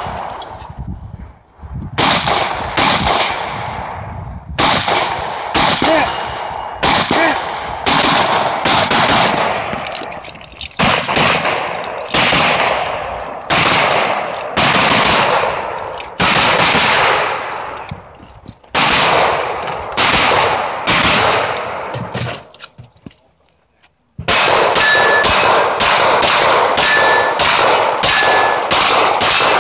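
Gunshots from a 3-gun competitor's AR-style rifle: single shots about a second apart, each trailing off in a long echo. After a short pause near the end comes a faster string of shots, two or three a second, with steel targets ringing on hits.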